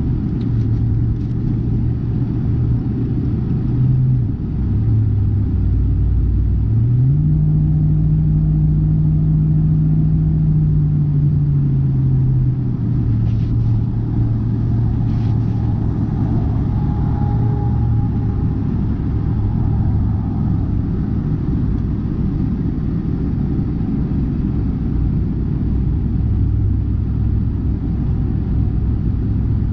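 Car engine and road rumble while driving, the engine note rising about seven seconds in and easing back down a few seconds later.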